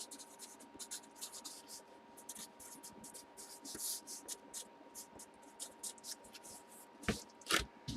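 Trading cards being handled on a table: many short rustling, sliding strokes, then two sharper taps about seven seconds in.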